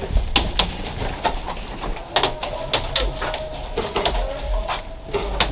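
Scattered airsoft gunfire and BB impacts: irregular sharp clicks and cracks, with a few in quick succession about two seconds in and again near the end.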